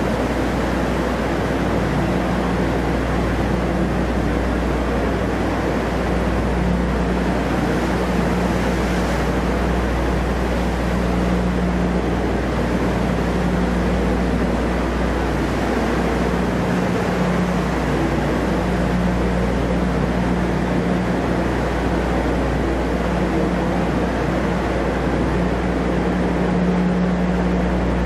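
Engine of the UHAC tracked amphibious vehicle running with a steady low drone while its tracks churn the water, in the enclosed steel well deck of a dock landing ship.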